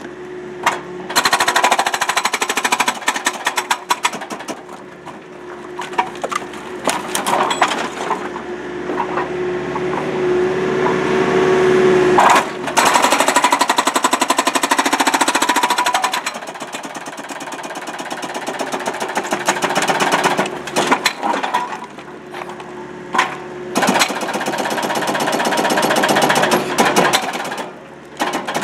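Rockblaster hydraulic breaker hammer on a Case excavator pounding a concrete pool wall, long runs of rapid blows broken by a few short pauses. The excavator's engine runs steadily underneath.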